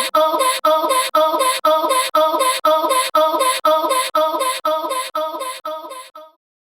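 Cartoon railroad crossing warning signal with a strange, voice-like tone, sounding in evenly repeated strokes about two and a half a second. It fades and stops about six seconds in.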